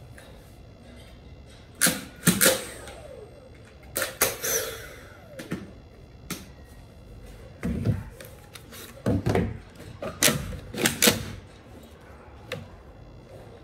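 Hard plastic parts of a Dyson V8 cordless stick vacuum being handled: irregular clicks, knocks and short rattles as its dust bin and body are opened, tapped and set down.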